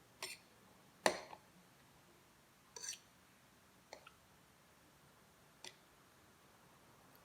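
Eating noises of a mukbang of instant pancit canton noodles: about five short, sharp clicks and smacks at uneven intervals, the loudest about a second in.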